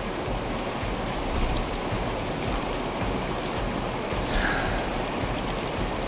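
Mountain stream water running steadily, with a brief louder hiss about four seconds in.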